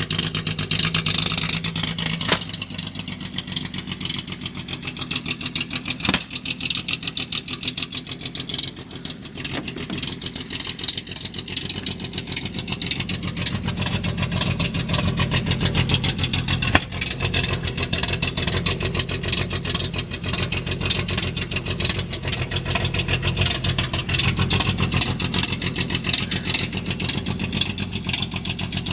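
1976 Datsun 280Z's 2.8-litre inline-six (L28) idling roughly, with an uneven, pulsing beat, and a few sharp clicks along the way.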